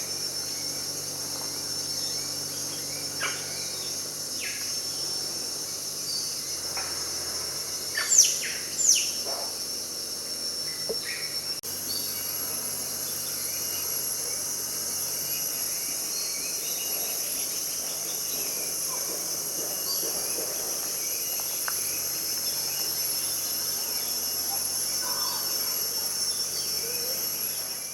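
Steady high-pitched drone of rainforest insects, with scattered short bird calls over it. Two loud calls sweeping down in pitch come about eight and nine seconds in.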